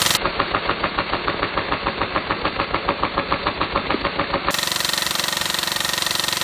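Airsoft electric gun (AEG) firing on full auto: a rapid, evenly spaced rattle of shots. About four and a half seconds in, the rattle gives way to a steadier, continuous sound.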